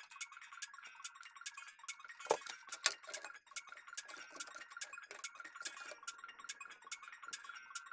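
Many small clicks and taps of computer parts being handled and fitted into a PC case, with two louder knocks about two and three seconds in.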